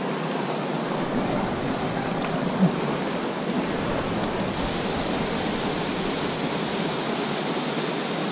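Steady rush of a steep mountain stream, water pouring over small waterfalls and riffles, with a brief knock about two and a half seconds in.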